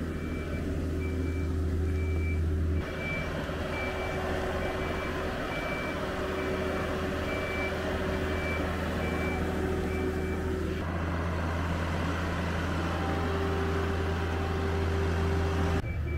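Marine travel lift's engine running with a steady low hum while its warning beeper sounds a little over once a second. The beeping stops about eleven seconds in and the engine keeps running.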